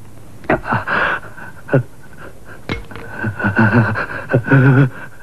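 A man panting in short gasps that fall in pitch, then groaning in a low voice in the second half, over a steady high tone.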